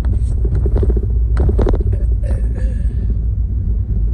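Steady low rumble of road traffic, with a short louder noise about a second and a half in and a brief high-pitched tone a little after two seconds.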